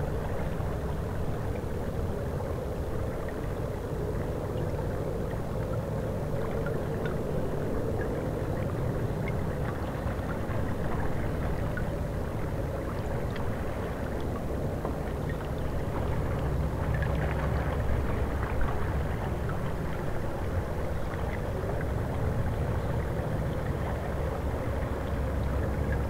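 River water flowing and lapping against shelf ice at the bank: a steady wash of water with a low rumble underneath.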